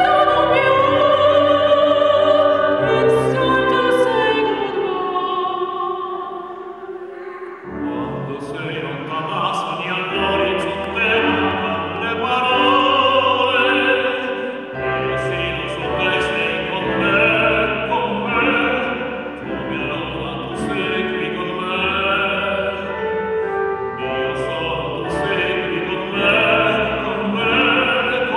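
Operatic singing with a sustained accompaniment of low notes: a woman's voice sings at first, then from about eight seconds in the tenor takes over.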